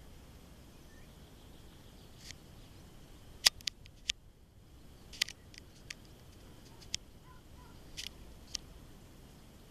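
Quiet rural outdoor ambience with a faint steady high hum, broken by about ten short sharp clicks and snaps, the loudest about three and a half seconds in.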